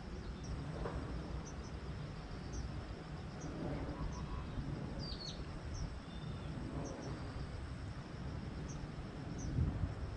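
Outdoor riverbank ambience: a steady low rumble under short, high chirps that repeat about once a second, over a faint steady high whine.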